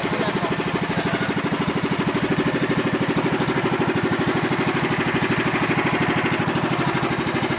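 Boat engine running steadily with an even, rapid pulse.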